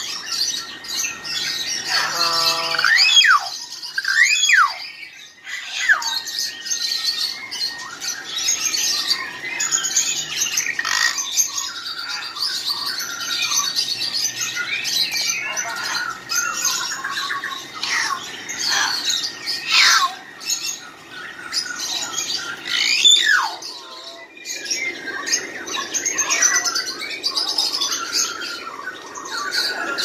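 Many caged pet birds chirping and squawking at once, a dense, unbroken chorus of short calls and sharp squawks from several birds together.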